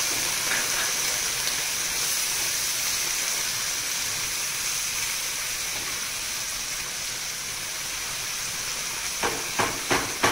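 Chopped onion, tomato and whole-spice masala sizzling in a nonstick frying pan with a steady hiss, as the water just added boils off into steam. Near the end, a few short knocks of a plastic spatula stirring against the pan.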